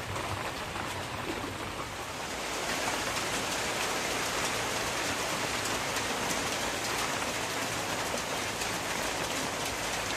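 Steady rain, a dense even hiss of drops that grows a little louder about two and a half seconds in.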